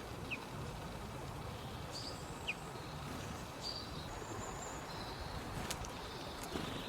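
Wild songbirds calling: short high whistled notes and a couple of quick thin chirps, scattered irregularly, over a steady low background noise.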